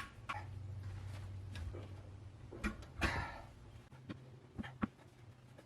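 Scattered knocks and clanks of hand tools working a new backhoe tire onto its rim, with a louder scraping knock about three seconds in.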